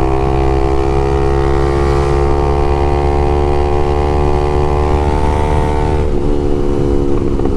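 Honda CBX 250 Twister's single-cylinder engine running hard under way through an open LeoVince exhaust, its pitch climbing slowly, then wavering near the end.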